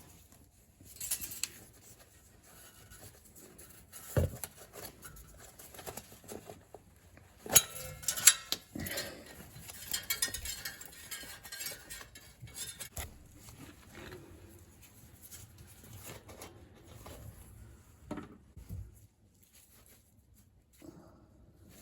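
Scattered metallic clinks and clatters, with a stretch of rustling a few seconds in, from hand tools and parts being handled during work under a car.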